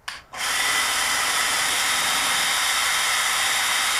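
Cordless drill spinning an Acme lead screw that drives a steel carriage on roller-skate wheels along the rails. The drill stops for a moment right at the start, gives a short blip, then runs steadily with a faint motor whine.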